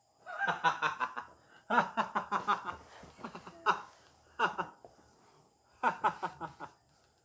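People laughing in several short bursts of chuckles and giggles, with pauses between them.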